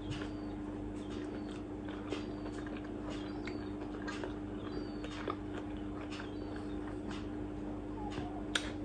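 A person chewing a mouthful of poached egg on toast, with soft irregular mouth clicks, over a steady low electrical hum.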